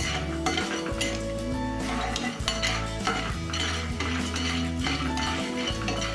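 Spatula stirring and scraping unpopped popcorn kernels in oil around a nonstick pan, in repeated strokes about twice a second. Background music with held notes plays underneath.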